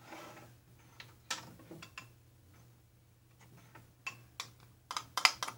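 Quiet, scattered clicks and taps of small plastic lip balm pots being handled on a wooden table, with a quick run of sharper clicks near the end.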